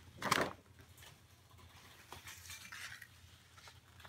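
Stiff cardstock being lifted and shifted by hand on a tabletop: a short paper rustle near the start, then faint rustling and light tapping of card on card.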